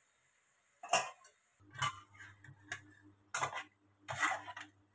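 A steel ladle clinking and knocking against metal cookware, about five separate short knocks. A low steady hum sets in about one and a half seconds in.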